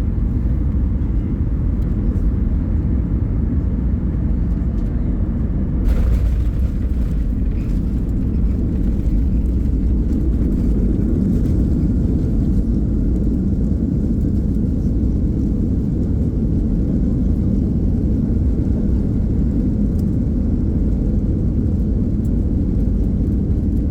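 Steady low rumble inside an airliner cabin during landing, with one sharp thump about six seconds in.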